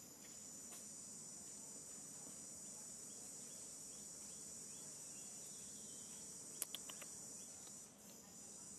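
Faint, steady, high-pitched insect chorus, with two or three sharp clicks about six and a half seconds in.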